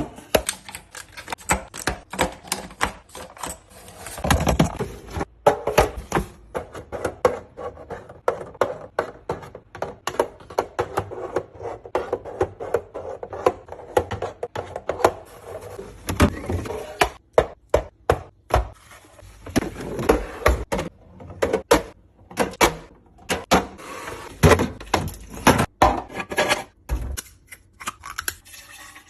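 Containers and packages being handled and set down while restocking a fridge: a steady stream of quick clicks, taps and knocks.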